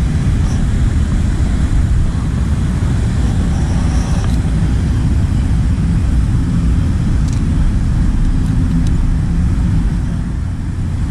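Wind buffeting the microphone: a loud, steady low rumble, with a few light clicks on top.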